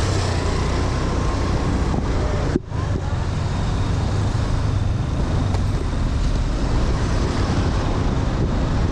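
Wind rushing over the microphone and road noise while riding a motorbike: a loud, steady rush with a deep rumble underneath. It breaks off for an instant about two and a half seconds in.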